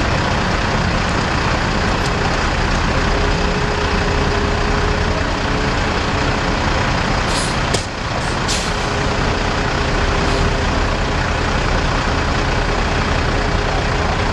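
Heavy diesel engines running steadily, with a faint steady whine. A few brief hisses of compressed air come a little past halfway.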